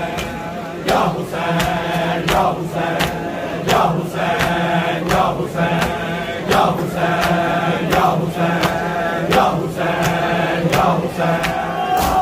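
A crowd of men chanting a noha together in unison. In time with it comes sharp, evenly spaced slapping of hands on bare chests (matam), about three slaps every two seconds.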